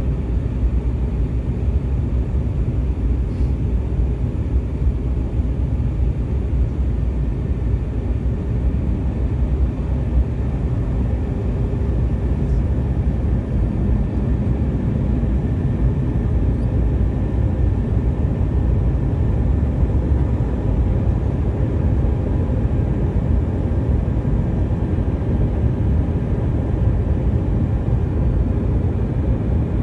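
Airbus A320 cabin noise heard from a window seat over the wing on approach: a steady low rumble of the jet engines and rushing airflow, unchanging throughout.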